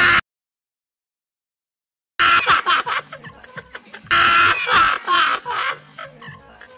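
A loud voice cut off abruptly, about two seconds of dead silence, then people laughing hard in loud, high-pitched bursts with music beneath.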